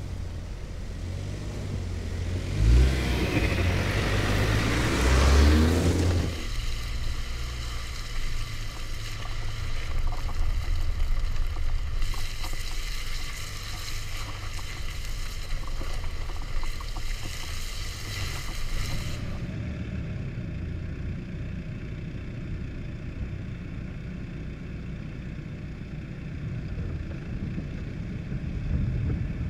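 MINI Cooper S Countryman ALL4's 2.0-litre turbocharged four-cylinder engine pulling the car over a muddy off-road track. It revs up and down a few seconds in, the loudest part. It then runs on steadily, with a low rumble of tyres on the dirt.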